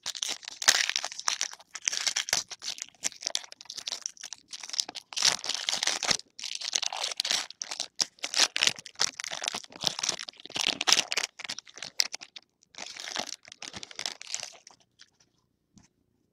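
Foil baseball-card pack wrappers crinkling and tearing as packs are ripped open and handled, in repeated bursts of crackling. It dies away about a second before the end.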